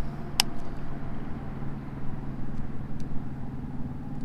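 Steady low hum of a vehicle engine running, holding one pitch, with a single sharp click about half a second in.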